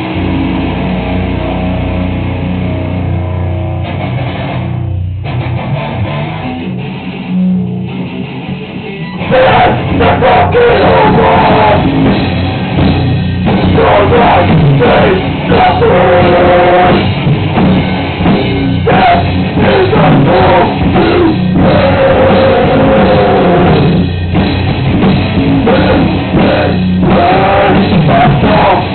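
Hardcore metal band playing live: distorted guitars and bass hold low chords for about nine seconds, then the drums and full band come in loud, with screamed vocals over it.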